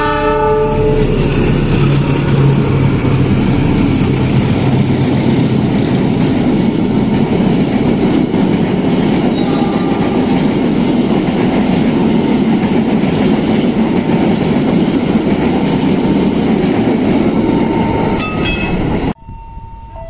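Train horn sounding through about the first second, then a train running past close by, its wheels and carriages rushing and clattering loudly for about eighteen seconds. Near the end the sound cuts off suddenly to a quieter electronic warning tone.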